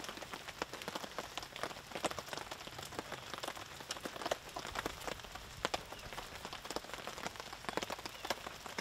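Rain falling: a steady hiss with many irregular taps of drops hitting surfaces.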